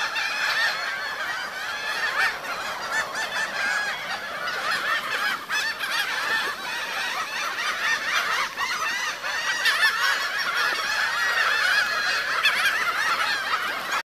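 A flock of black-hooded gulls calling all at once, a dense, unbroken chorus of short arching cries, as they crowd the water feeding on fish.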